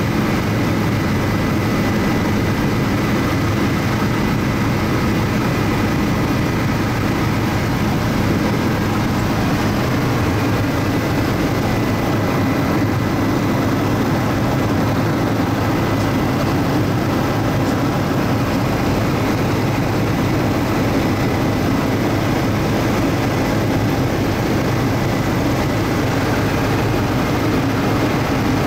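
Steady drone of a Bell 407 helicopter heard inside the cabin in cruising flight: main rotor and turboshaft engine running evenly, with a thin, steady high whine over the low drone.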